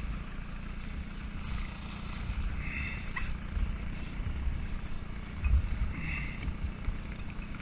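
Canoe under way on the river, its motor running steadily with a constant low drone, mixed with wind and water rushing past.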